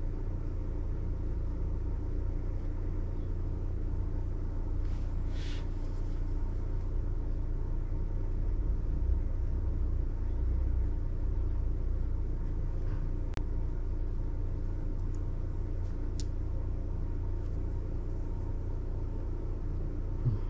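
Steady low background rumble with a faint hum, and a few faint brief scratches and clicks.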